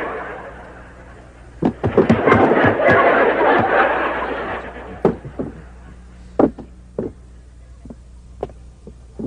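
Studio audience laughter swelling for a few seconds, mixed with and followed by a scattering of sharp knocks, several of them about half a second apart.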